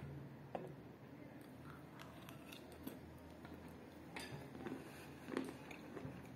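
Close-up chewing of kaolin clay with crumbs of chalk in it: irregular small crunches and clicks, a few louder ones in the second half.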